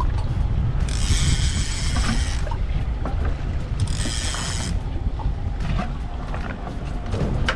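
Conventional fishing reel's drag buzzing as a hooked fish pulls line off, in two runs, a longer one about a second in and a shorter one near the middle, with wind rumbling on the microphone throughout.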